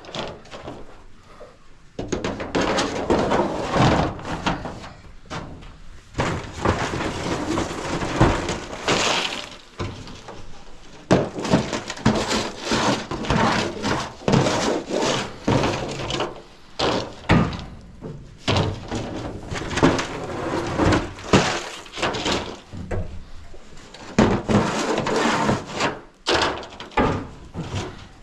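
Welded metal coop scraper scraping dried chicken droppings off the coop's droppings shields: repeated irregular rasping strokes mixed with knocks, starting in earnest about two seconds in.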